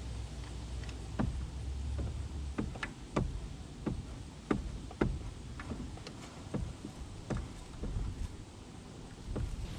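Sharp, irregular metallic clicks, about one or two a second, from hand tools at work on an engine's spark plugs, with a low steady hum during the first couple of seconds.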